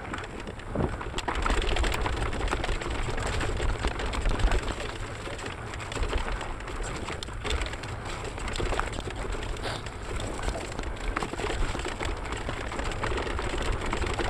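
Mountain bike descending a steep dirt trail at speed: wind buffeting the action camera's microphone with a constant low rumble, over tyre noise on dirt and scattered rattles and knocks from the bike going over bumps.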